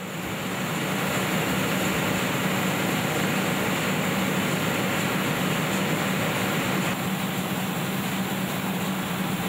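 Soap drying-plant machinery running steadily: a constant rushing noise with a steady hum underneath.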